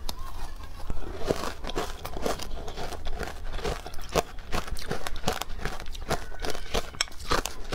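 Close-miked crunching and chewing of powdery ice coated in matcha powder: a steady run of quick, irregular crunches, a few a second, as mouthfuls are bitten and chewed.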